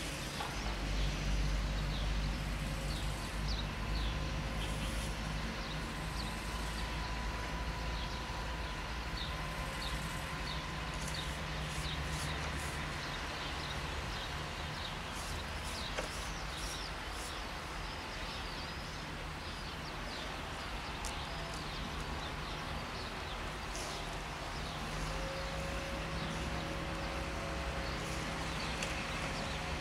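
LDH diesel-hydraulic shunting locomotive's engine running steadily with a low hum, with birds chirping over it.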